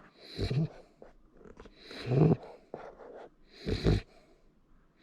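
Labrador retriever puppy snoring in its sleep: three snores, one about every second and a half.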